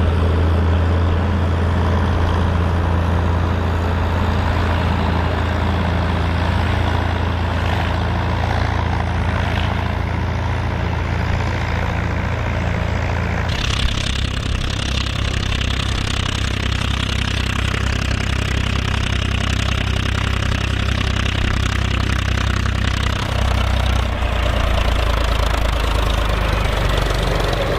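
Diesel engine of a Volvo BM tractor running steadily while ploughing. The engine note changes abruptly about halfway through, to a different pitch with more hiss.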